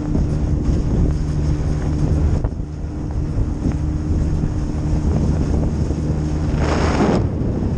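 A boat's outboard motor running at a steady speed, with wind buffeting the microphone. A short rush of noise comes a little before the end.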